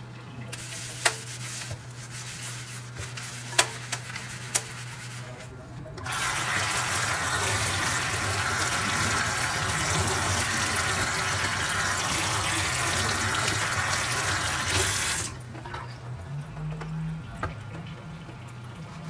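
Water running steadily for about nine seconds, then cut off abruptly. Before it there is light rubbing with a few sharp clicks.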